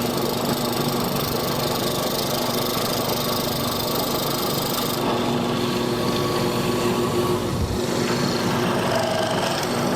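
Electric motor of a hollow-chisel mortising machine running steadily while the square chisel and auger bit cut a mortise in wood, its sound changing about five seconds in.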